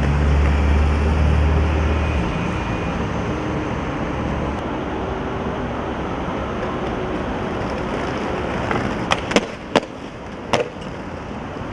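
Skateboard wheels rolling over paving stones, with a heavy vehicle's engine rumbling in the first couple of seconds and then fading. Near the end come four sharp clacks of the skateboard hitting the ground.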